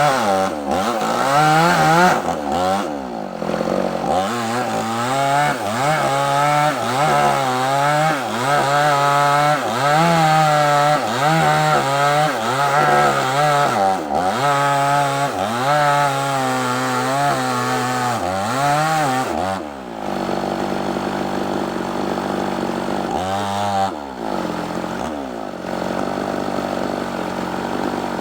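Two-stroke chainsaw cutting through a large sengon log: the engine runs at full throttle, its pitch dipping and recovering about once a second as the chain loads up in the cut. About two-thirds of the way in it drops to idle, revs up briefly once, and idles on.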